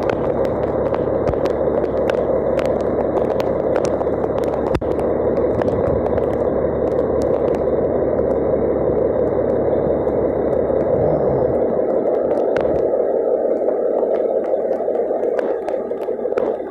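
Fire engine's diesel engine running steadily, with many short taps of rain drops over it; its low rumble eases about twelve seconds in.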